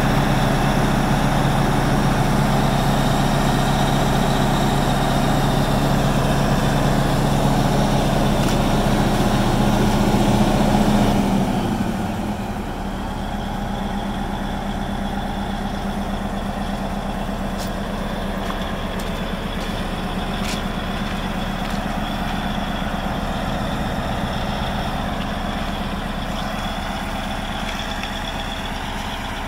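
Caterpillar D9N crawler dozer's V8 diesel engine running steadily. About eleven seconds in, the engine note drops and quietens as it settles to a steady idle.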